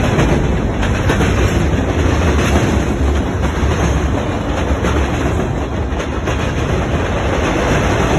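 Norfolk Southern manifest freight train's cars rolling past: a steady, loud rumble with occasional clicks from the wheels.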